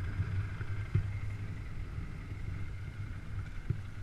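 Polaris Sportsman 500 H.O. ATV's single-cylinder four-stroke engine idling steadily, with two light knocks, about a second in and near the end.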